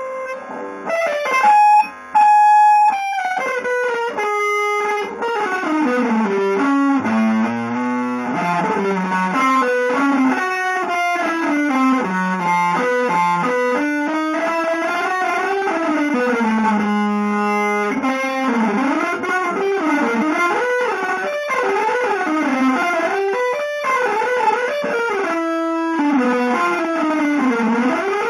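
Electric guitar playing a fast single-note line that slides and bends between notes, with a few longer held notes.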